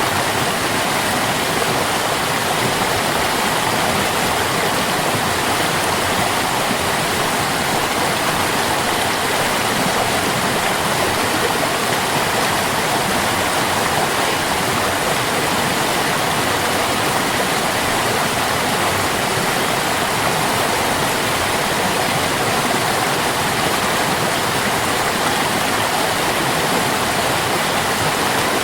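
Stream water rushing steadily, an even, unbroken noise with no changes.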